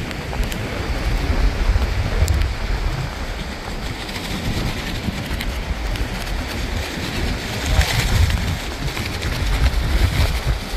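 Strong storm wind buffeting the microphone in gusts, a heavy low rumble that swells and eases, over the steady hiss of surf on the beach.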